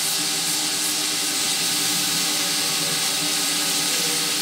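Hot air rework gun blowing a steady hiss of hot air, with a faint steady hum from its fan, onto a flux-coated IC to melt the solder on its pins.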